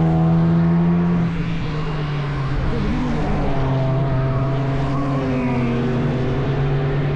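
Racing car engines running on the circuit, a steady engine drone with several pitched notes, and pitches that sag and shift as cars go by around three and five seconds in.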